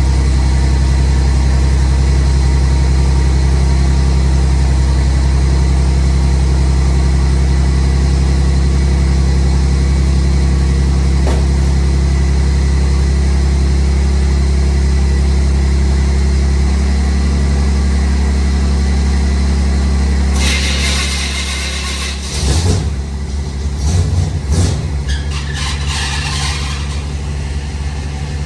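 A vehicle engine idling steadily after a cold-morning start. About twenty seconds in, the engine note drops and several seconds of irregular bursts of noise follow.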